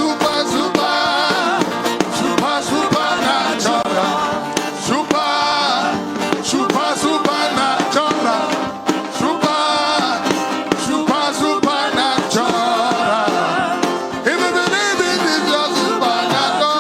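Live gospel worship music: a band playing continuously, with a wavering sung or instrumental melody line over it.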